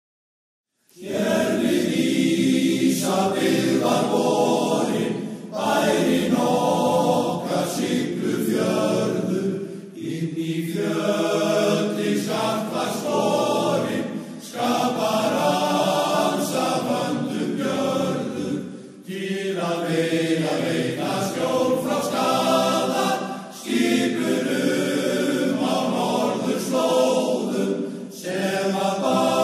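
A choir singing in long phrases of about four to five seconds, with short pauses between them.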